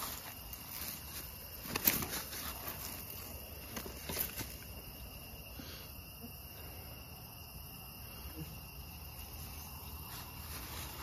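A steady chorus of crickets and other night insects, with rustling and a few sharp clicks from the landing net and the fish being handled. The loudest click comes about two seconds in.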